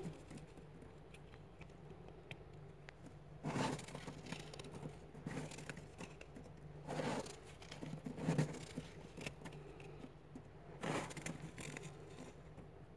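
A hand scooping and crushing thick, soft freezer frost: crunchy scrapes and crackles, with about four louder grabs spaced a few seconds apart.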